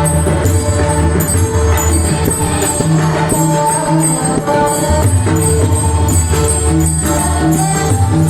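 Varkari bhajan music: pakhawaj and tabla drumming with deep bass strokes, small hand cymbals (taal) clashing in a steady rhythm, and held melodic notes over them.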